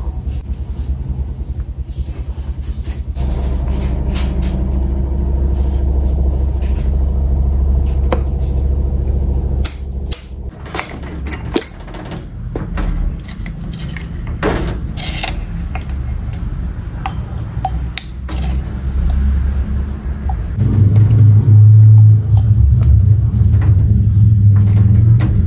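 A steady low hum that grows louder about three-quarters of the way through, with scattered clicks and clinks of glass clamp-lid jars being opened and a scoop dipping into them.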